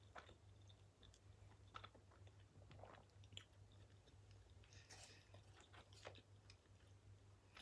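Quiet chewing of a burger with the mouth close to the microphone: soft wet smacks and clicks at irregular intervals, over a low steady hum.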